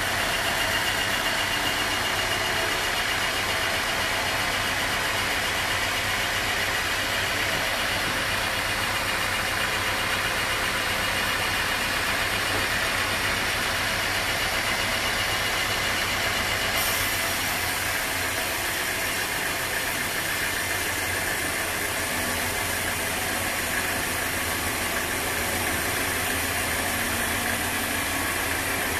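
Sawmill machinery running steadily: a constant engine hum with a steady hiss above it that shifts slightly about halfway through.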